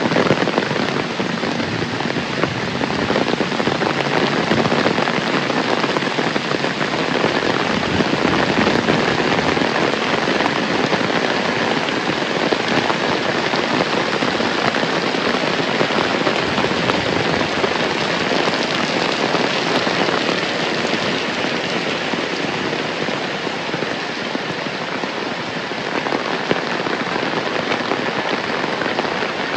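Heavy rain falling steadily: a loud, even hiss of countless drops striking surfaces, with no let-up.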